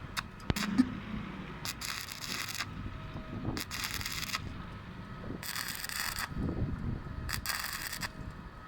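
Stick-welding arc crackling in four short bursts about two seconds apart, the stop-start stitch welding used on thin 1.6 mm sheet steel to keep it from burning through.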